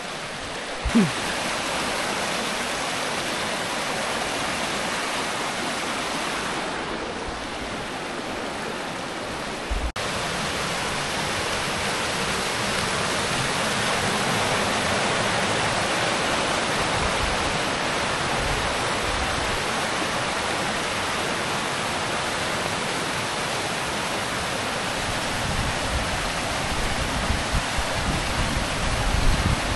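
Rushing mountain stream tumbling over boulders and small falls: a steady, even rush of white water.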